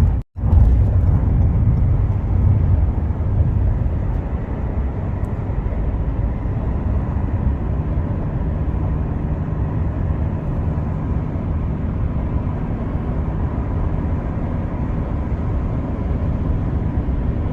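Steady road and engine noise of a moving car, heard from inside the cabin: an unbroken low rumble.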